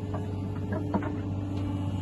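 Steady low machine hum, with a few faint light knocks about half a second to a second in.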